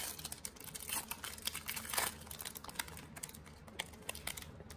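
Trading cards and a foil card-pack wrapper being handled: a quick run of small clicks and crinkles, densest about two seconds in.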